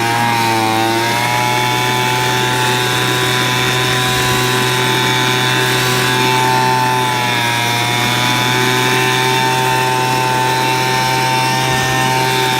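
Motorized blower running steadily at a high, even speed, with a slight waver in pitch, blowing air to dry someone off.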